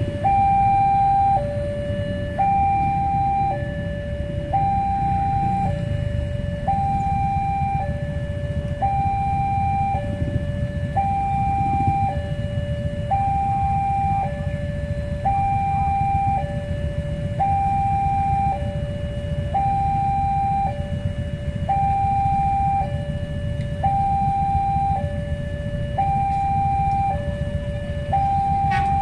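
Railway level crossing alarm sounding an electronic two-tone warning, switching between a higher and a lower note about once a second without a break, the signal that a train is approaching and the barriers are down. Under it runs a steady low rumble.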